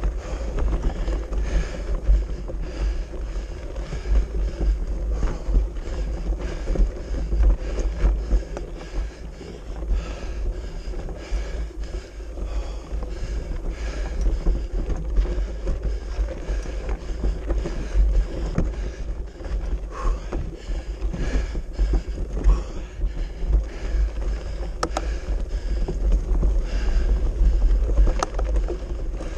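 Mountain bike rolling over a loose stone track: tyres crunching on gravel and the bike rattling with many small irregular clicks, over a constant low rumble of wind and vibration on the handlebar-mounted camera's microphone.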